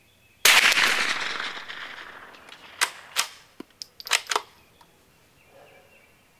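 A single .22 LR shot from a Savage B22 FV-SR bolt-action rifle, a sharp crack about half a second in with a long echoing decay. A couple of seconds later comes a quick run of about six metallic clicks as the bolt is worked to chamber the next round.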